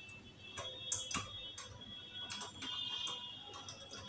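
Several light clicks and taps of a metal objective lens being screwed into an L101 microscope's revolving nosepiece, scattered unevenly, over quiet background music.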